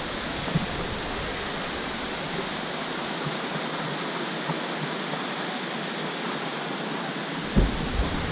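Steady rushing of water from a waterfall, an even, unbroken noise. A brief low bump comes near the end.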